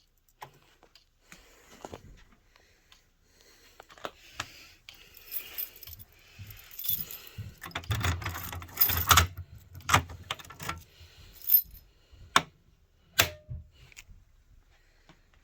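Jangling and rattling of handled hardware with scattered sharp clicks, loudest about eight to nine and a half seconds in, and two sharp clicks near the end.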